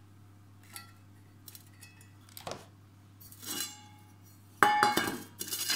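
Stainless steel camp cookware handled on a table: a few faint light clicks, then near the end a loud clatter of the pans knocking together with a short metallic ring.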